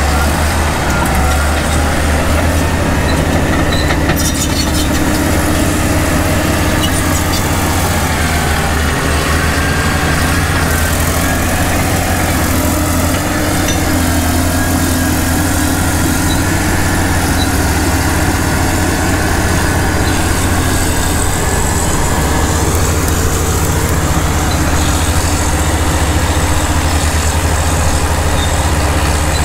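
Diesel engines of vintage Caterpillar crawler dozers running under load while pushing and levelling dirt: a loud, steady low engine drone.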